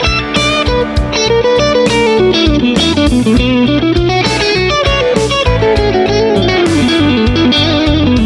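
Electric guitar playing a lead melody with bends and vibrato over a backing track of drums and bass.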